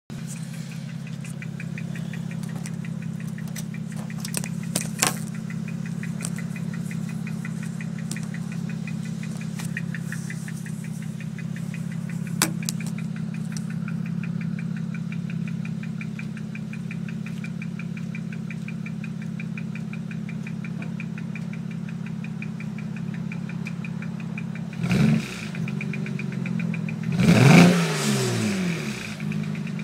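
Car engine idling with a misfire, running unevenly with a fast steady ticking. Near the end it is briefly revved twice, the second rev louder.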